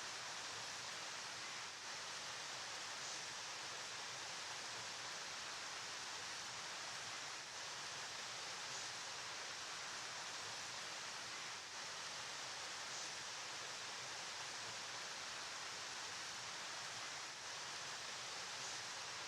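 Flowing river, a steady, even rushing hiss with no distinct splashes or other events.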